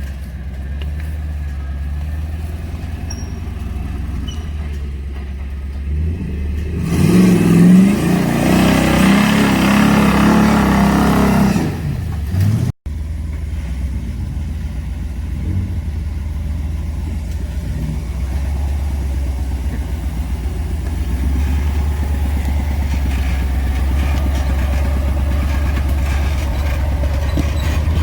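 Off-road vehicle engine running at low revs, revving up hard for about five seconds a quarter of the way in, then dropping back. After a brief break in the sound near the middle, an engine runs steadily again, growing a little louder near the end.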